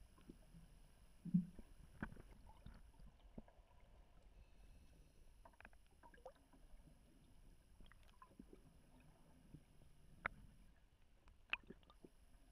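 Very faint, muffled underwater ambience picked up through a camera housing: a low rumble with scattered small clicks and knocks, and one dull thud about a second and a half in.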